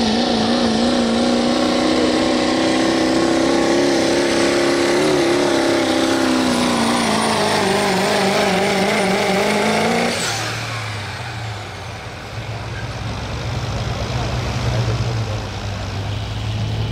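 Turbocharged Chevrolet Silverado diesel pulling truck at full throttle under load on the sled: a loud, steady engine tone that wavers slightly in pitch. About ten seconds in the engine lets off sharply, a high turbo whine falls away, and the truck drops to a low rumble.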